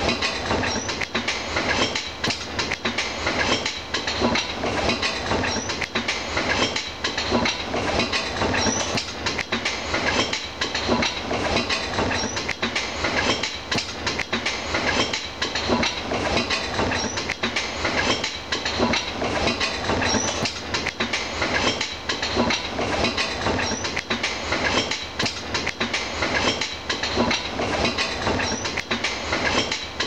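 Alpine coaster cart running down its steel rail track, its wheels keeping up a steady, rapid clatter.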